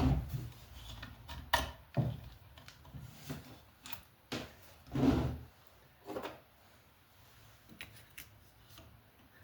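Handling noises from fitting a lamp socket fixture and pulling its cord: a series of separate knocks and rubs, the loudest about five seconds in, then a few light ticks near the end.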